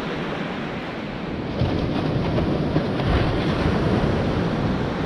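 Sea waves washing on the shore, with wind rumbling on the microphone; the surf grows louder about a second and a half in.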